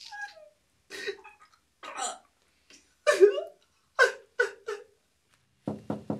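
A man retching over a toilet bowl: short heaving, gagging vocal bursts about once a second. Near the end come three quick knocks on a wooden door.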